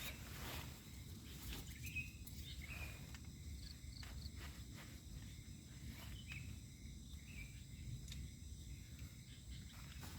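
Quiet night ambience: faint, short insect chirps over a low, steady rumble, with a few soft clicks.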